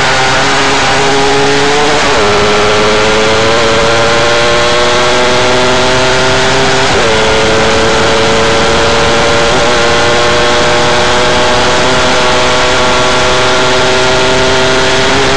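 Formula 5 single-seater race car's engine heard from on board at speed, running loud with its pitch climbing slowly and broken briefly about 2, 7 and 10 seconds in, over a steady rush of wind.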